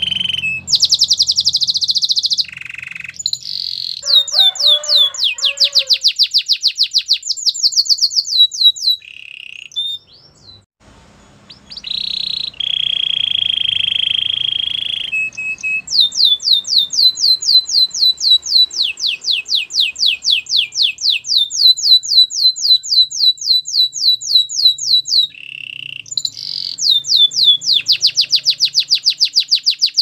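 Domestic canary singing its song: long, fast trills of rapidly repeated high notes, broken once by a short pause and a held, buzzy note in the middle.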